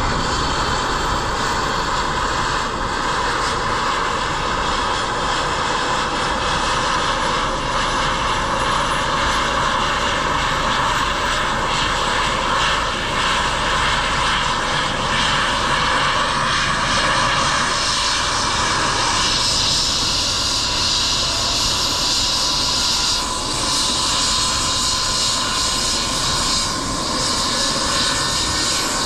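Eurocopter EC135 P2+ helicopter running on the ground before takeoff: its twin Pratt & Whitney PW206B2 turboshaft engines whine steadily under the rush of the turning rotor. About two-thirds of the way through, a higher hiss comes up.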